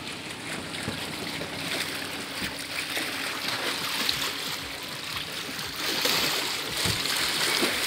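Small lake waves lapping and splashing against shoreline rocks, a steady wash of water noise.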